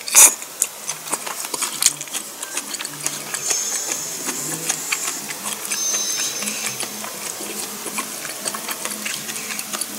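A short, loud slurp of soup from a bowl, then close-up chewing with many small mouth clicks.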